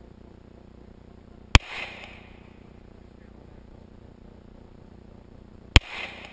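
Two semi-automatic pistol shots about four seconds apart, each a sharp crack followed by a short echo.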